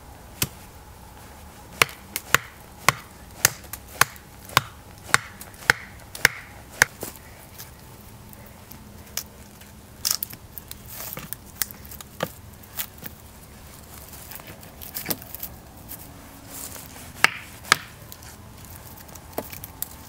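Machete striking wood in a quick run of about a dozen chops, roughly two a second, that stops about seven seconds in. Fewer, scattered wooden knocks follow as wooden poles are handled.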